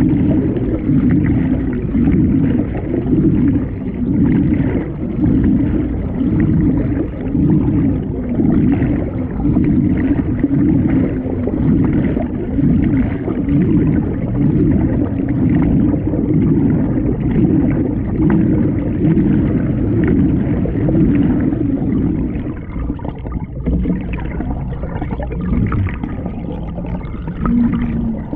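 Muffled underwater rushing and gurgling of water heard from beneath a moving canoe's hull, swelling and fading in a steady rhythm about once a second. The rhythm eases and the sound turns quieter and less even about 23 seconds in.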